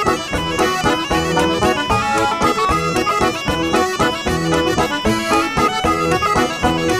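Traditional folk band playing a bourrée dance tune live, a banjo picked among the instruments under a sustained reedy melody line, with an even dance pulse.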